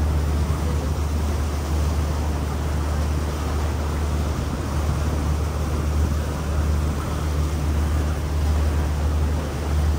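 Steady low drone of a river cruise boat's engine under a constant rush of wind and water.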